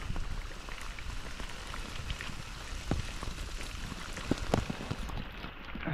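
Rain falling steadily, with many scattered drops ticking sharply.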